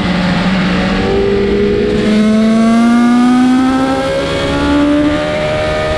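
BMW S1000RR inline-four engine, breathing through an Akrapovič slip-on silencer and heard from on board, pulling hard with its note climbing steadily as the bike accelerates. Heavy wind rush runs underneath.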